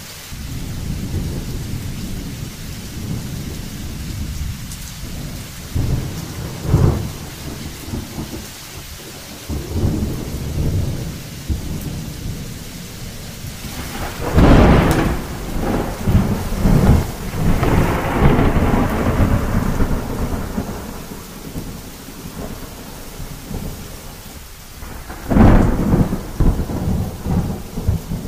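Thunderstorm: thunder rumbling low and almost without a break over steady rain. There is a sharper clap about seven seconds in, a loud crack about halfway that rolls on for several seconds, and another loud crack near the end.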